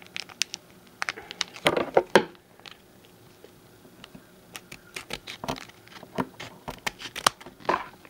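Foil Naruto trading-card booster pack crinkling and crackling in the hands as it is worked open, an irregular string of sharp crackles.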